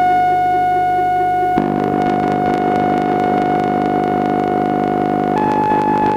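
Modular synthesizer drone run through a Korg Monotron Delay: a sustained high tone over a low droning chord. The low notes shift about a second and a half in, and the high tone steps up slightly near the end as new notes are triggered from the pad sequencer.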